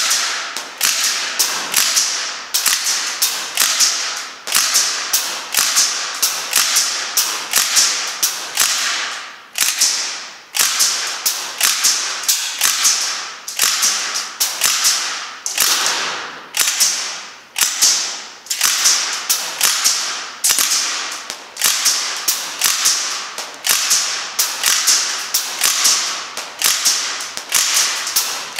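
Northeast Sten MK5 gas blowback airsoft replica firing single shots on propane at a steady pace of about two or three a second. Each shot is a sharp crack of the blowback cycling, fading quickly. The magazine is being emptied in a test of how many shots one gas fill gives.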